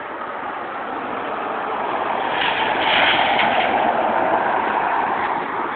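Tornado wind and rain, a steady rushing noise that swells to its loudest about three seconds in and then eases slightly.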